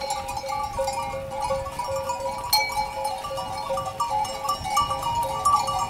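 A flock of sheep passing close by, many bells on the flock ringing and clinking at a few fixed pitches.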